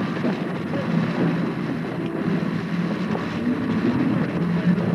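Crowd of men milling and shuffling about on foot, a steady low rumble of movement and indistinct murmur with no clear words.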